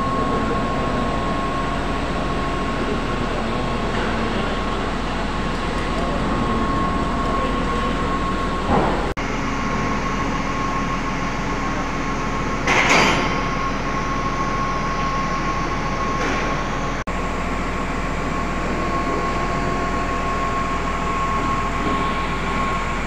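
Incinerator's centrifugal blower and ductwork running: a steady rushing noise with a constant high whine. A brief louder burst of noise comes about halfway through.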